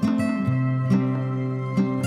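Gentle instrumental background music of plucked string notes, soft and calm in tone.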